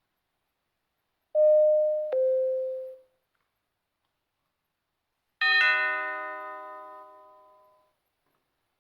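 Doorbell sound effects: a two-note ding-dong chime, a higher note followed by a lower one, about a second and a half in, then a few seconds later a brighter bell chime with many ringing tones that fades away over about two seconds.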